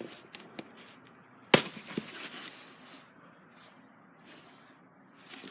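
Containers being handled: a few light clicks, then one sharp knock about a second and a half in, as of a container being set down hard, and a softer knock just after, with brief rustling.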